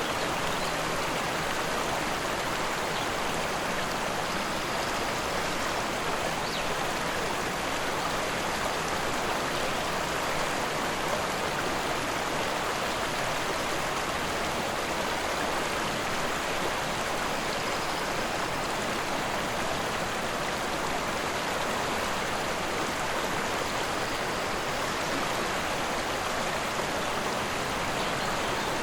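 Rushing forest river: an even, unbroken rush of flowing water at a steady level.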